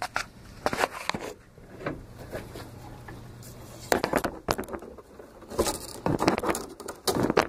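Digging by hand in loose dirt and roots to free a buried bottle: irregular scraping and crunching, heaviest about four seconds in and again near the end.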